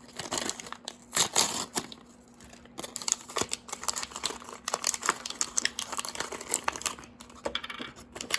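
Small plastic wrappers crinkling and tearing as miniature toy pieces are unwrapped by hand, in irregular handling bursts with many small clicks.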